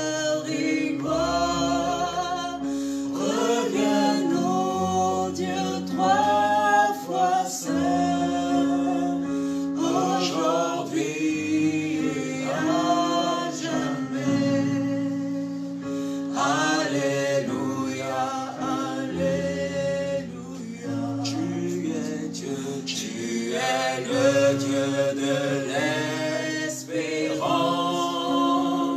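Gospel worship song sung by a small group of men and women, phrase after phrase, over steady held low notes from the accompaniment, with an electric guitar.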